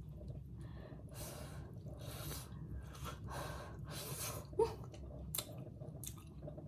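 A person chewing and huffing air through the mouth in about four breathy puffs, cooling a mouthful of hot, just-baked buffalo chicken.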